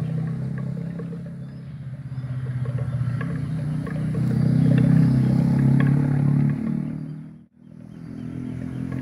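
A motor vehicle engine hums, swelling to its loudest about halfway through and then falling away; the sound drops out abruptly a little past the middle and returns. Faint scattered clanks of buffalo neck bells sound underneath.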